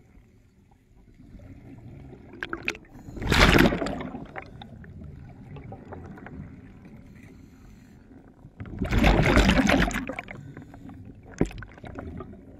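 Scuba diver's exhaled bubbles rushing out of the regulator twice, about six seconds apart, each lasting about a second, over a quieter low underwater rumble.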